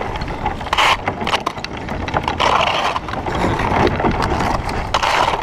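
Kayak paddle strokes splashing in the water about every one and a half to two seconds, over a steady rumble of wind on the microphone, with scattered small clicks and knocks.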